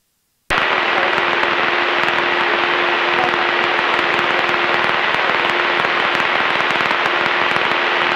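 Cessna 172 engine and propeller noise in a climb, as picked up through an open headset microphone: a dense, steady hiss that cuts in abruptly about half a second in, with a low steady tone and a thin high tone running through it.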